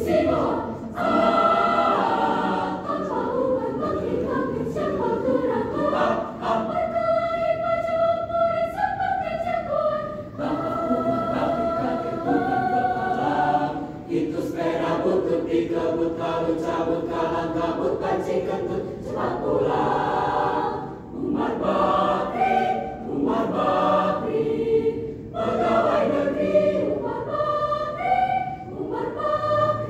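Mixed choir of women's and men's voices singing together in several parts, in held phrases with brief breaks between them.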